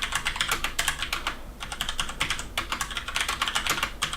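Typing on a Cherry MX-Board 3.0 mechanical keyboard with Cherry MX Red linear switches: fast runs of key clacks with brief pauses between words. A little clicky, but without the high-pitched click of blue switches.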